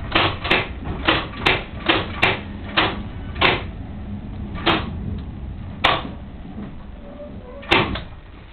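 Wheels of a 'Thumper' diesel-electric multiple unit clicking over rail joints, heard on board over a steady low engine rumble. The clicks come further and further apart, from about two a second to one every second or two, as the train slows.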